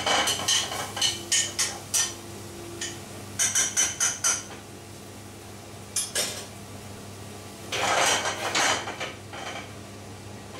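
A utensil knocking and scraping against a metal sauté pan while onion is stirred in butter, in several quick runs of clinks. A steady hum from the kitchen extraction runs underneath.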